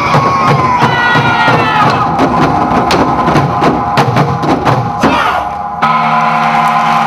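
Performance music driven by quick drum and wood-block-like percussion strikes, with a pitched line sliding downward in the first two seconds. About six seconds in, the percussion stops and gives way to a steady sustained drone.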